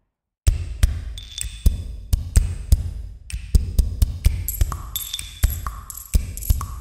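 Electronic music with a steady drum-machine beat and heavy bass, starting about half a second in after a moment of silence.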